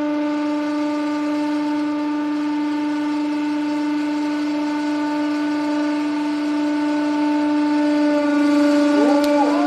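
Hydraulic press running under load, its pump giving a steady, unbroken hum as the ram presses down through the filled cylinder. Near the end, a brief wavering sound rises and falls over the hum.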